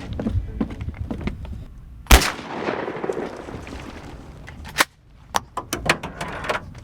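A loud sharp bang about two seconds in that echoes away over a second or so, followed near the end by a quick run of about half a dozen lighter sharp cracks.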